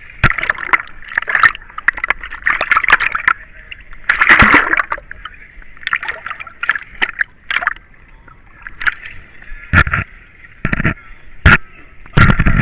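A person crawling through a corrugated pipe. Gloves and body scrape and knock against the ridged wall, with splashing from muddy water, in irregular bursts. Several heavy thumps come near the end.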